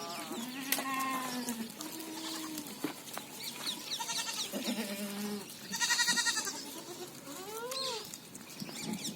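Sojat goats, a doe with her kids, bleating in a string of overlapping calls, some low and drawn out, others higher. The loudest is a quavering high bleat about six seconds in, followed by a call that rises and falls near the end.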